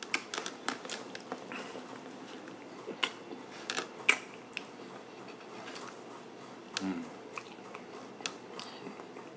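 Chewing a soft custard-filled chocolate éclair: small wet mouth clicks and smacks scattered irregularly through.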